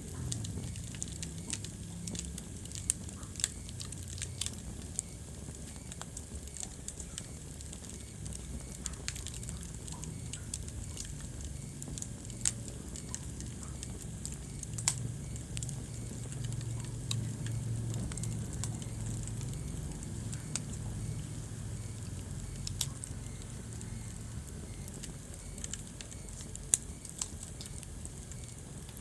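Wood fire burning in a fireplace: a steady low rumble of the flames with scattered sharp crackles and pops from the burning logs.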